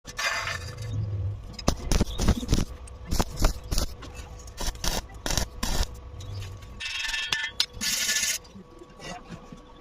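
Arc welding on thin square steel tubing: short bursts of hissing, crackling arc near the start and again about seven to eight seconds in, with a run of sharp clicks and taps in between.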